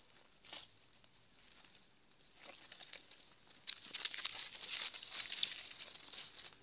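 Macaques scuffling and scrambling through dry leaf litter: a crackling rustle of leaves, brief at first, then dense and loud from about halfway in as two of them tussle. A short high-pitched squeal rises and falls at the loudest part of the scuffle.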